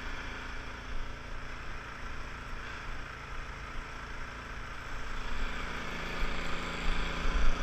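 Snowblower's small gasoline engine running steadily, getting somewhat louder over the last couple of seconds.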